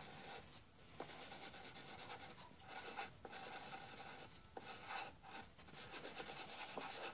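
Pencils scratching and rubbing on paper during quick drawing, faint, with short pauses between strokes.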